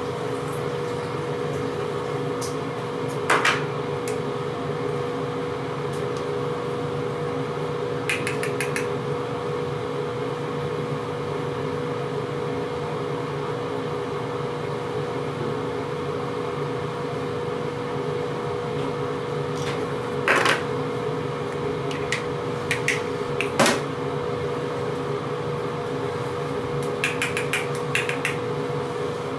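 A steady mechanical hum with one constant tone, with a few light clicks and taps here and there, a quick run of them near the end, from handling a plastic loose-powder foundation jar and makeup brush.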